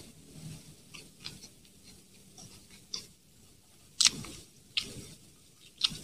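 Close-miked chewing of a mouthful of hamburger: irregular wet mouth clicks and lip smacks, loudest about four seconds in and again near the end.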